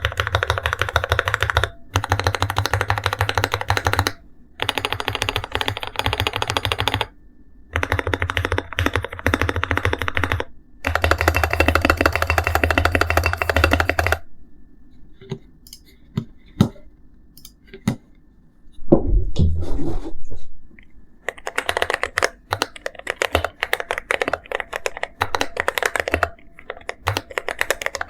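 Typing on an Akko MonsGeek M1 mechanical keyboard with Akko CS Jelly Black linear switches, lubed stabilizers and a tape mod, in a deep 'thock' build. Several runs of fast keystrokes are broken by short pauses; then come slower, scattered presses with one short run of deeper thuds, and steady fast typing picks up again near the end.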